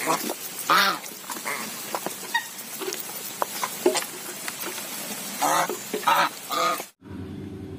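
A flock of white domestic geese feeding from a metal basin of wet mash: many quick clicks and wet dabbling of bills in the feed, with a short honk about a second in and several more close together near the end.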